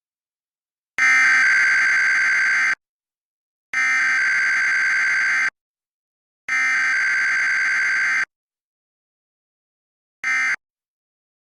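Emergency Alert System SAME digital data bursts, the harsh two-tone data code of a Required Weekly Test. Three identical header bursts, each under two seconds, sound about a second apart. A short end-of-message burst follows near the end, with no attention tone in between.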